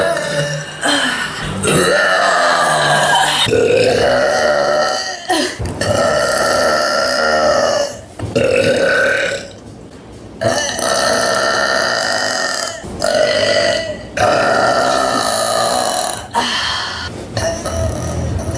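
A woman belching a run of long, loud burps from carbonated soda, about eight in a row, several drawn out for two seconds or more, with short pauses between them.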